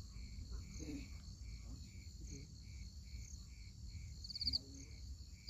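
Night insects: crickets chirping in an even rhythm about two or three times a second over a steady high insect drone, with a short, louder trill about four and a half seconds in.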